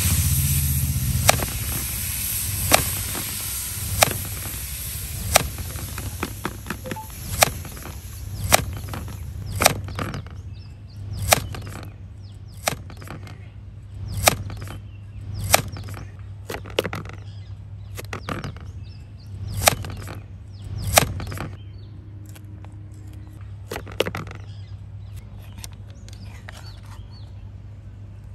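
Evenly spaced sharp knocks, about one every second and a half, over a steady low hum. They grow fainter and stop about three quarters of the way through, with one last knock a few seconds later.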